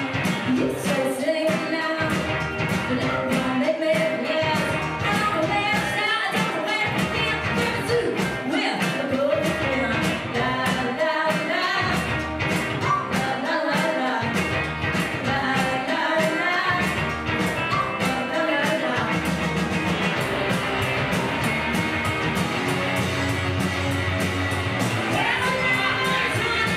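Indie rock band playing live through a club PA: electric guitars and bass over a steady drum beat, with a singer's voice over the top.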